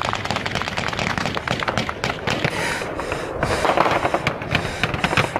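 Sustained automatic gunfire: many rapid, overlapping shots a second, as from several weapons firing at once.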